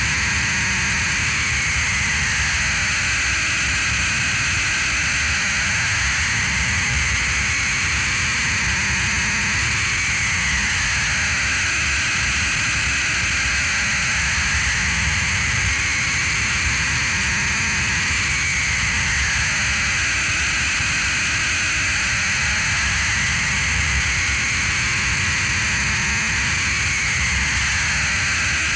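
Droning noise score: a steady wash of hiss and low rumble, with a high whining tone that slowly rises and falls every eight seconds or so.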